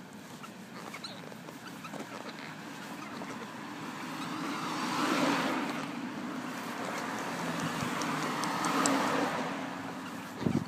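Vehicles passing on the road: a rush of tyre and engine noise that swells and fades twice, peaking about five seconds in and again around nine seconds.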